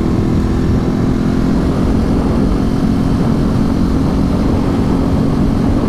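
Ducati 848 Streetfighter's L-twin engine running at a steady, even speed while the bike is under way, with wind rushing over the microphone.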